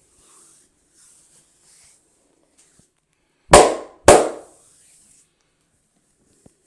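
Two loud, sharp smacks about half a second apart, each dying away quickly: the barber's hands striking during the head massage. Faint rubbing of hands on hair and skin comes before them.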